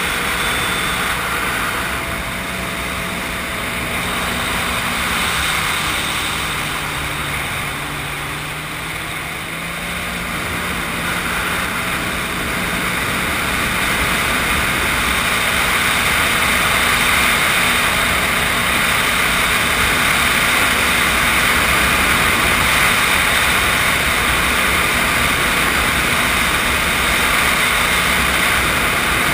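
Sea-Doo GTI SE personal watercraft under way: steady engine and jet-pump drone over a constant rush of water and wind. About a quarter of the way in the engine eases off, its pitch and loudness dropping, then climbs back up and holds steady as the craft speeds up again.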